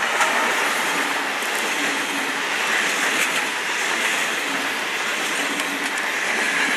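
Railway locomotive moving slowly at close range: a steady running noise of wheels and machinery with a strong hiss.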